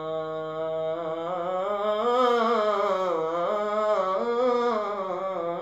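Male voice singing an unaccompanied devotional manqabat, holding one long drawn-out vowel that is ornamented with rises and falls in pitch: a sustained melismatic phrase.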